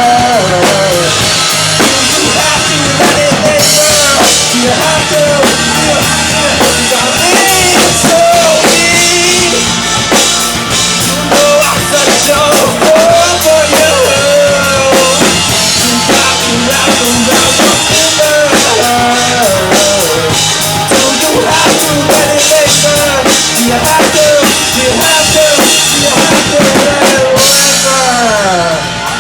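Rock band playing a song live, loud, with a full drum kit (bass drum and snare) driving under bass, guitar and a melody line that slides up and down.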